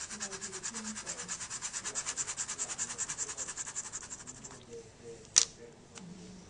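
Pen scribbling rapidly back and forth over a barcode on a paper slip, about eight scratchy strokes a second, stopping after about four and a half seconds. A single sharp tap follows about five seconds in.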